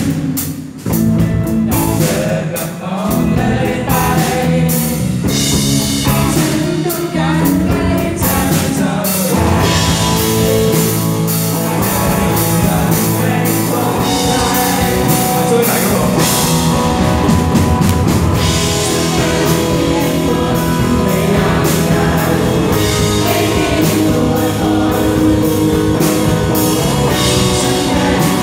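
Live rock band playing a song with vocals, acoustic and electric guitars and drums; the band's sound fills out about ten seconds in.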